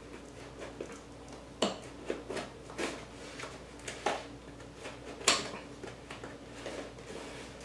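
Scissors cutting through the packing tape on a cardboard box: a run of sharp snips and scrapes with cardboard rustling, the loudest about five seconds in.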